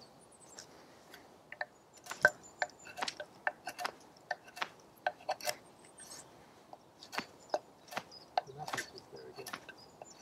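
Stainless carving knife shaving a dry, knotty blackthorn branch: a series of short, sharp cuts, irregularly spaced, with a pause of about a second and a half near the middle.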